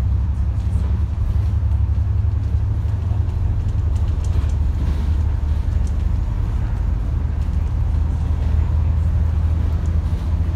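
A double-decker bus's engine and road noise drone steadily inside the upper deck while it cruises. It is a constant low hum with faint light rattles over it.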